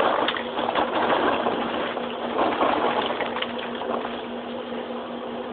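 Popped popcorn pouring out of a paper microwave-popcorn bag into a plastic spaghetti strainer, with the kernels rattling and the bag rustling, busiest in the first couple of seconds. A steady low hum runs underneath.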